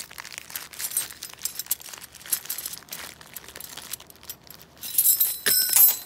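A plastic bag crinkling as it is handled and worked open around a handful of metal key blanks. Near the end the key blanks clink and jingle together sharply.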